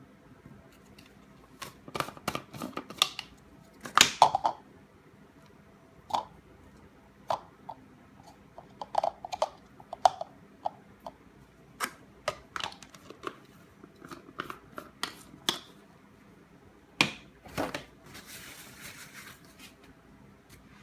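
Hands handling a banana and the plastic Magic Bullet cup: scattered clicks, taps and crunchy snaps, with a short rustle near the end.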